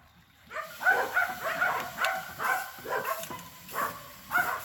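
A dog barking and yipping in a rapid run of short, high calls, starting about half a second in.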